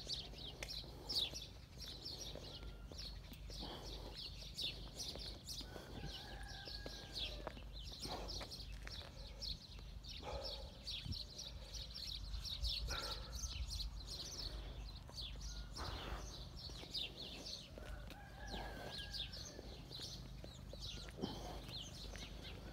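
Small birds chirping without pause, a dense stream of quick high chirps. A longer, lower call sounds twice, about six seconds in and again later. A steady low rumble runs underneath.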